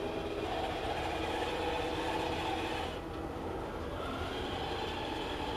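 Small wheeled robot's electric drive motors and gears whirring as it drives, with a change in pitch about three seconds in.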